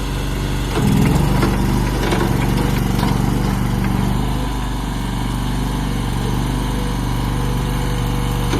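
Agrotk LRT23 tracked skid steer loader's 23 hp engine running steadily, with a brief rise in level about a second in and a few knocks in the first few seconds.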